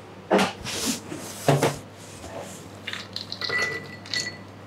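Ceramic bowls and a spoon being handled: two firm knocks in the first second and a half, then lighter clinks of the spoon against the bowl with a faint ring near the end.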